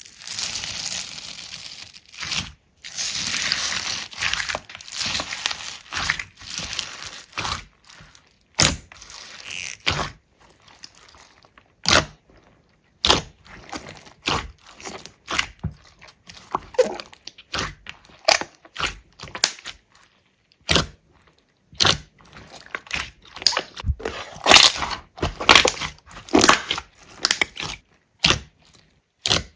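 Hands squeezing and kneading slime. It makes irregular crunching and crackling with sharp popping clicks, thick and continuous over the first several seconds, then more scattered snaps and pops.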